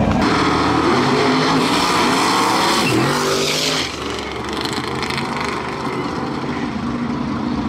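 Drag cars launching and running at full throttle, engine pitch climbing, with a brief drop and climb again about three seconds in as a gear changes. The sound is loudest for the first four seconds, then falls away as the cars go down the track.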